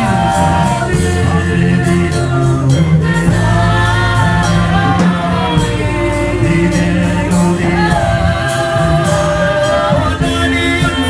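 Christian worship song with band and sung vocals: long held sung notes over steady bass and a regular drum beat.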